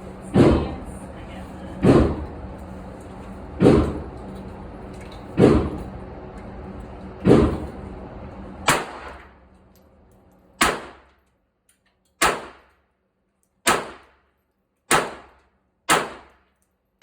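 Pistol fired at a slow, steady pace: about eleven single shots, one every second and a half or so. A steady background hum lies under the first half and stops about nine seconds in.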